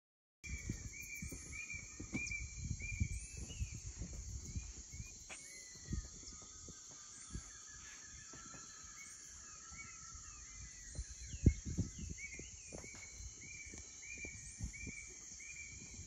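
Rainforest ambience: a steady high insect drone, with a short rising chirp repeating every two seconds or so above it. Birds call over it in repeated whistled notes, and a chattering series runs through the middle. Low rumble and bumps sit underneath, with one sharp knock a little past halfway.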